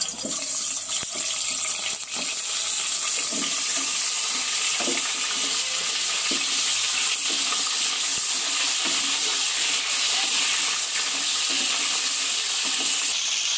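Potato halves frying in hot oil in a pan, a steady high sizzle. A few light knocks in the first couple of seconds as the pieces go in.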